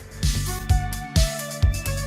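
Background music with a steady electronic beat and a melody line.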